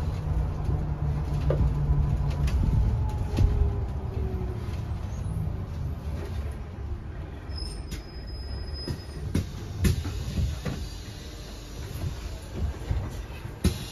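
Interior of a Higer KLQ6126GEV battery-electric city bus on the move: a steady low rumble with a faint falling whine from the electric drive in the first few seconds as it slows. It then grows quieter, with a few short knocks and rattles from the cabin.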